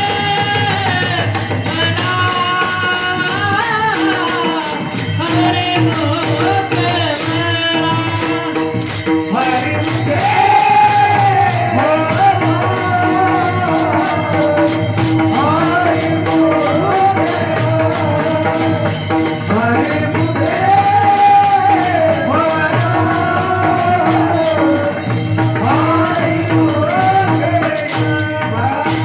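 Marathi devotional bhajan: a Maharaj's singing voice in long, sliding melodic phrases, accompanied by pakhawaj drum, a steady drone and fast jingling percussion.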